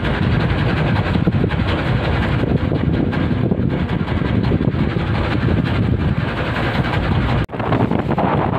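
A boat's engine running steadily, mixed with wind and sea noise. There is a brief drop-out about seven and a half seconds in, after which the same noise carries on.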